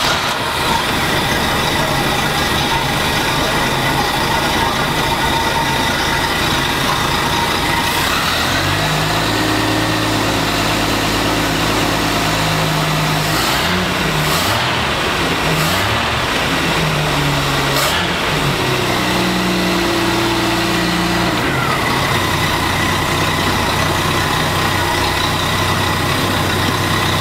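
MerCruiser 4.3-litre V6 sterndrive engine running, a loud steady mechanical noise. From about nine seconds in its pitch steps up and down several times as it is revved, then it settles back to a steady run for the last few seconds.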